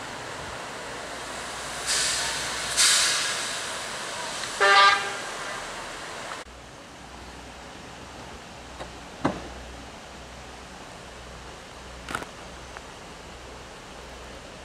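Cog railway train horn giving one short toot about five seconds in, just after two loud hissing bursts. Then the level drops suddenly to a faint steady background with a couple of sharp clicks.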